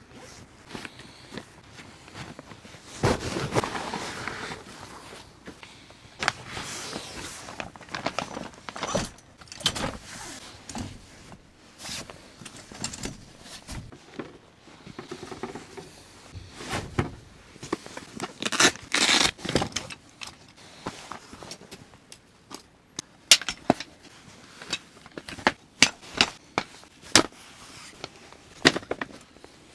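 Camping gear being set up by hand: a folding camp cot with a metal frame and a folding camp table, with fabric rustling and a string of sharp clicks and clacks as the frames are opened and snapped into place. The sharpest clicks come in the last several seconds.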